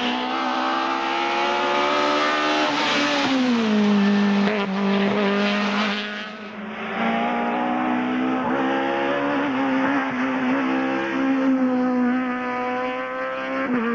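Peugeot 206 rally cars running hard on a tarmac stage. The engine note drops about three seconds in as the driver comes off the throttle, then climbs again under acceleration. A change of footage about six and a half seconds in brings a second car pulling steadily with slowly rising revs.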